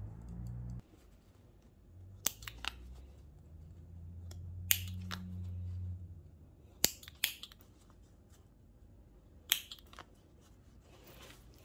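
Small thread snips cutting stitches as a seam is unpicked: about eight sharp snips, several coming in quick pairs, over a low hum that stops about a second in and comes back for a few seconds in the middle.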